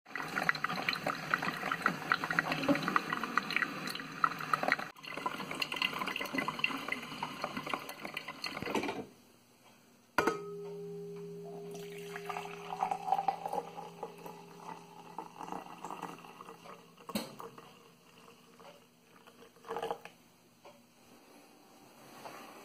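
Drip coffee maker brewing: hot water gurgling and sputtering into the glass carafe for about nine seconds. After a short pause, coffee is poured into a glass mug over a low steady hum, followed by two knocks.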